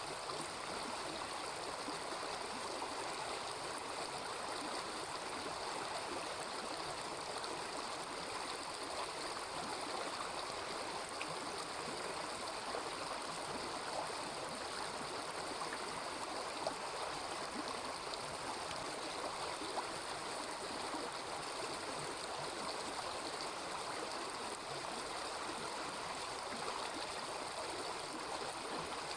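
A small river babbling and gurgling steadily over its bed, with a few faint single clicks.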